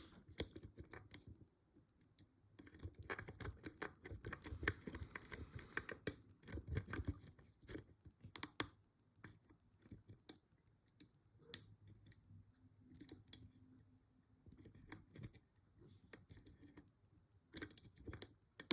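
Lock pick clicking and scraping against the pins inside a rusty laminated padlock, in irregular clusters of small, quiet clicks.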